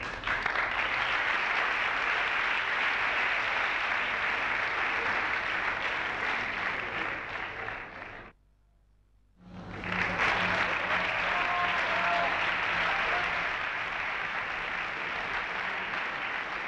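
Theatre audience applauding, a dense steady clapping. It breaks off for about a second just past the middle, then resumes.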